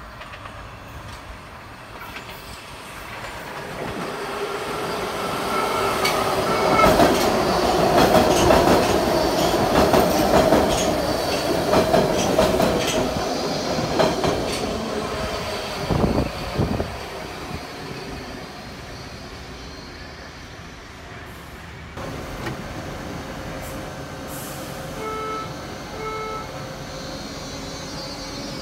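A Baltimore Metro Subway train with DC chopper-controlled traction motors approaches and runs along the platform, growing louder and then fading, with a steady whine and wheels clicking over rail joints. After a sudden change, a quieter steady train hum comes with a few short beeps.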